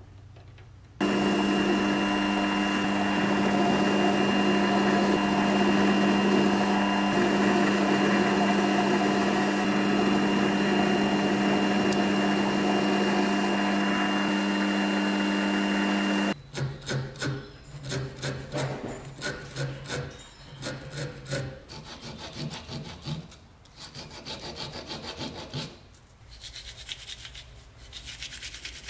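An electric power tool running steadily with a constant hum; it starts about a second in and cuts off abruptly about halfway through. Irregular rubbing strokes by hand follow.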